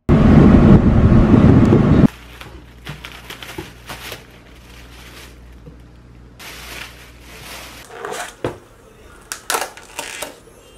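Loud, steady rumble of a vehicle cabin in motion for about two seconds, cut off abruptly. Then soft rustling of a plastic bag and plastic takeout containers being handled, with a few sharp plastic clicks near the end.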